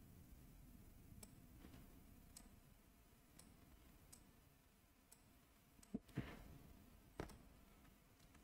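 Near silence with faint, scattered clicks from a computer mouse and keyboard, and three slightly louder clicks close together about six to seven seconds in.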